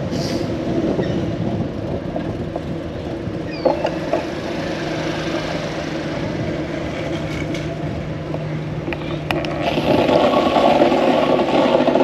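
A motor vehicle's engine running close by over a steady hum of traffic, growing louder near the end.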